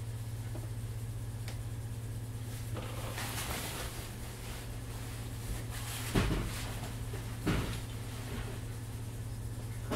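Inside a Class 507 electric multiple unit standing at the platform: a steady low hum from the onboard equipment, with two knocks a little past halfway, about a second apart, and a brief hiss around three seconds in.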